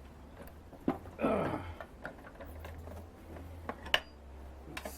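Mini lathe running slowly with a steady low hum while cutting a thread, with a few sharp light clicks and a short scraping squeak about a second in.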